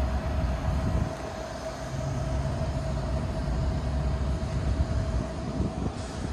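A vehicle running with a low rumble and a steady high whine that cuts off near the end.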